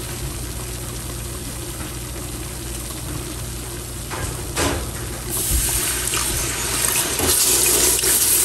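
Butter-and-flour roux sizzling softly in a large pot; about five seconds in, milk starts pouring into the pot, a loud steady splashing pour that lasts to the end.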